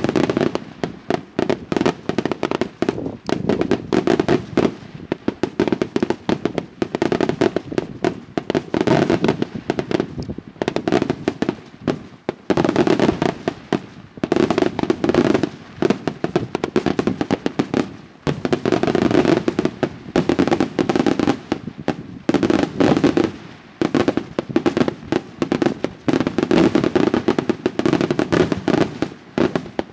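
Daytime aerial fireworks by Di Matteo Fireworks: a dense barrage of shell bursts, bang after bang in rapid succession, with only brief lulls.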